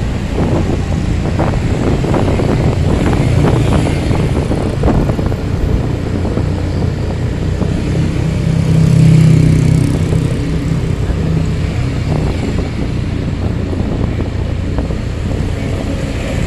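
Road traffic of motorcycles and cars, heard from a vehicle moving among them: a continuous low engine hum with some crackling knocks in the first few seconds, and an engine note that swells loudest about nine seconds in as a vehicle passes close.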